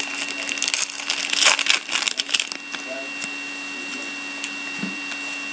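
Wrapper of a hockey card pack crinkling and tearing as it is opened, dense crackling for about two and a half seconds, then quieter handling of the cards over a faint steady hum.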